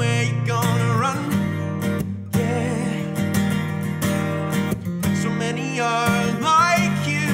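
Live band playing a song: an acoustic guitar strummed over a steady bass guitar line, with a man singing a few drawn-out, wavering notes.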